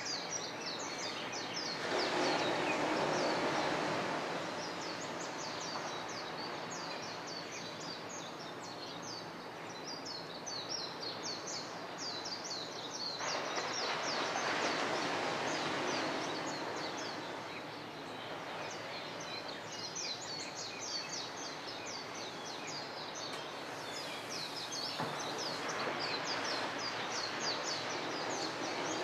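A dawn chorus of many small birds chirping rapidly and continuously. Under it is a steady rushing noise that swells three times, roughly every eleven seconds.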